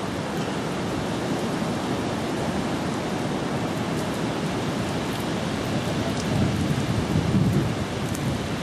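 Steady rushing noise of seashore wind and surf, with wind rumbling on the microphone, strongest about six to seven seconds in.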